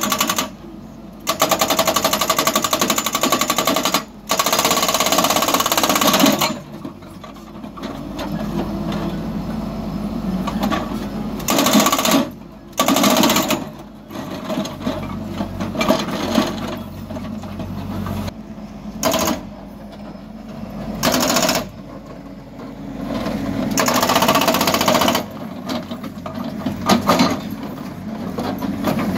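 Hidromek backhoe loader's hydraulic breaker hammering on rock in rapid, loud stretches of a few seconds at a time, several times over. Between the stretches the loader's diesel engine runs more quietly.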